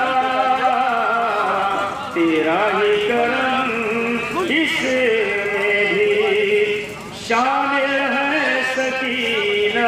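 A man singing an Urdu devotional poem in a melodic chanting style into a microphone. He holds long, wavering notes and breaks off briefly about two seconds in and again about seven seconds in.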